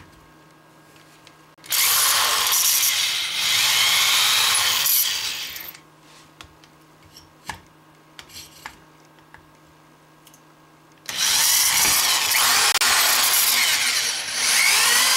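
Corded electric drill with a 3/16 inch bit drilling through a square antenna boom tube, enlarging 1/8 inch pilot holes. A run of about four seconds starts about two seconds in. After a pause with a few light clicks, the drill runs again from about eleven seconds on.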